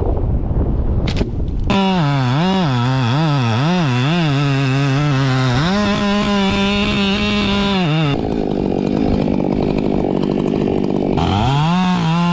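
Two-stroke chainsaw engine revving in quick repeated blips, then held at high revs for about two seconds before dropping back. After a rougher stretch with no clear engine note, it revs up again near the end.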